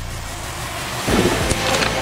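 Electric R/C dirtbikes' motors whining as they rev up, with tyres spraying gravel; it gets loud about a second in.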